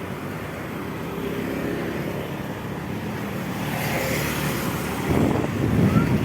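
Low, steady rumble of motor-vehicle engines, like passing traffic, growing louder near the end.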